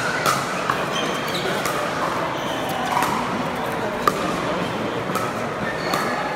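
Pickleball paddles striking the hard plastic ball in a fast rally: a string of sharp pops, about one to two a second, with steady background chatter from spectators.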